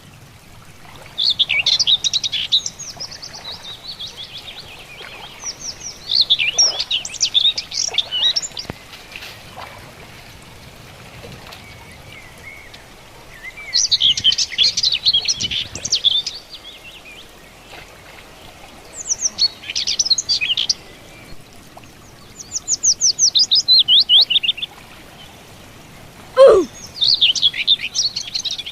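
A bird singing in short bursts of rapid, high chirping notes, about every four to five seconds, over faint outdoor background noise. Near the end comes a single sharp falling whistle, the loudest sound of all.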